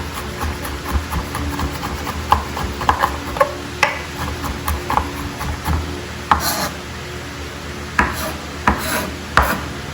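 Kitchen knife chopping and mincing food on a cutting board: irregular sharp knocks, a few a second, with scraping strokes between them.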